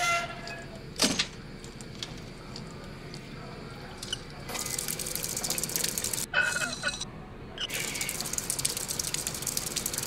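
Drinking fountain being worked by hand: a short squeak and a sharp click, then the water jet hissing and splashing into the basin. The jet stops briefly twice, with squeaks of the valve, and comes back on.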